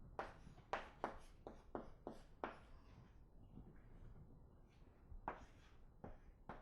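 Writing on a classroom board: a quick run of short strokes and taps, a pause, then a few more strokes.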